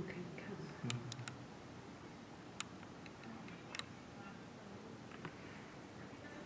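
Faint ambient background with a handful of isolated sharp clicks, three in quick succession about a second in and single ones later; a low murmur sits under the first second.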